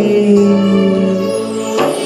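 Music of a Telugu Christian worship song between sung lines, with steady held notes.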